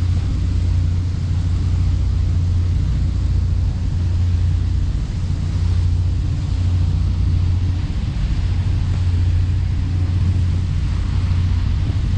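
Boat engine running at a steady low drone, with a steady rushing noise of wind and water over it.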